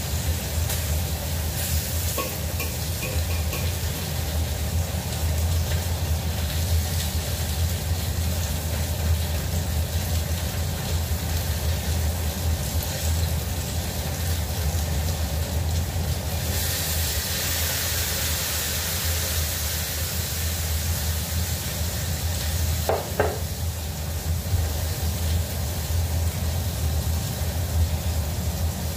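Tofu sizzling as it fries in oil in a wok over a gas flame, with a few light clinks of a metal spatula about two seconds in. About halfway through the sizzle turns louder and hissier for several seconds as cooking wine and soy sauce are poured into the hot wok, then settles back.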